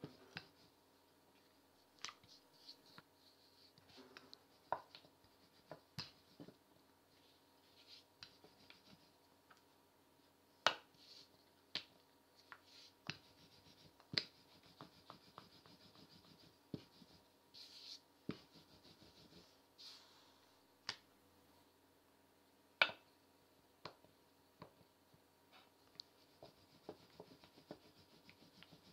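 Wooden rolling pin rolling out chapati dough on a floured worktop: soft rubbing and scraping, with irregular sharp taps as the pin is lifted, set down and moved across the dough.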